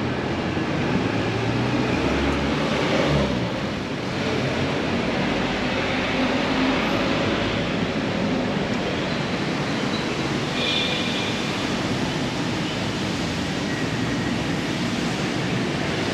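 Steady road traffic noise, with a heavier vehicle rumbling past a few seconds in.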